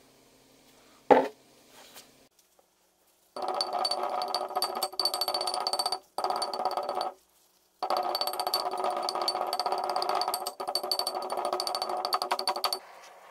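A cast-iron brake disc is set down on a wooden bench with one loud thud about a second in. Then come fast, dense taps of a chipping hammer knocking crust off the disc, with the disc ringing at steady pitches under the blows. The tapping breaks off abruptly twice.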